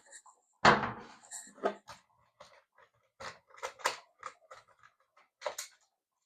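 Small containers and utensils being handled on a work surface: a loud knock about half a second in, then a run of light, irregular taps and clicks.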